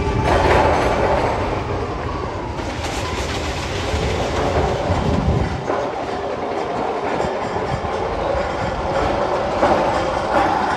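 Magnum XL 200 roller coaster train rumbling and clattering along its steel track. The deep rumble drops away about halfway through, while the rattling goes on.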